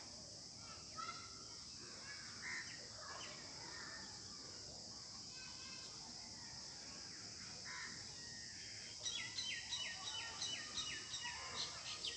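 Birds calling with scattered short chirps; about nine seconds in, one bird starts a fast run of repeated sharp notes, about four a second, over a steady high hiss.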